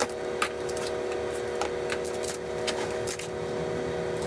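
Pocket knife slitting packing tape on a cardboard box, then the cardboard flaps and packing inside being handled, heard as a string of short scrapes, cuts and clicks over a steady low hum.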